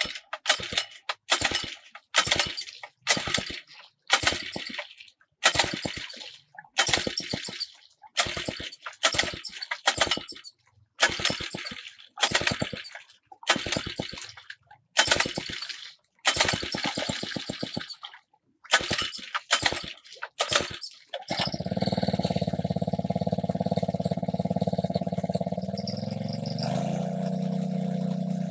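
A small engine cranked over in short repeated bursts, about one a second, that catches about three-quarters of the way in and keeps running steadily, its note shifting slightly shortly before the end.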